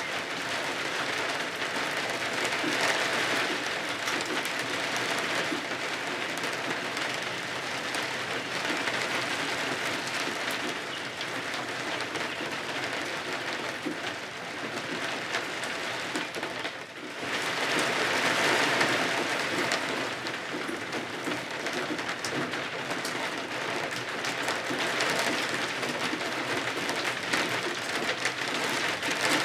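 Steady rain falling, a dense even patter that swells and eases every few seconds, with a brief drop in level a little past halfway.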